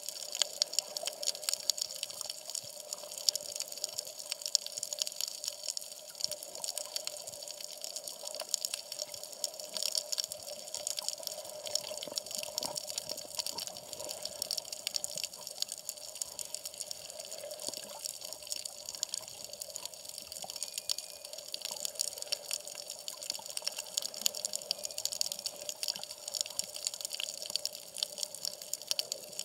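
Water sloshing around a half-submerged camera housing, with a steady, dense crackle of tiny clicks.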